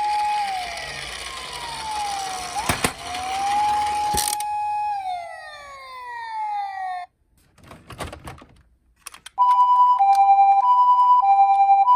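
Electronic siren of a toy emergency-vehicle minicar: a wail rising and falling, winding down and cutting off, then a couple of clicks and a short rattle. About nine seconds in, a two-tone hi-lo "pee-po" siren of the Japanese ambulance kind starts and keeps alternating.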